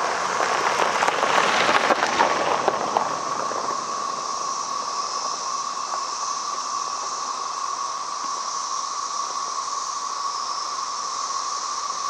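A dense chorus of 17-year periodical cicadas (Magicicada): a steady droning buzz with a fainter high hiss above it. During the first three seconds a crackling rustle sits over it.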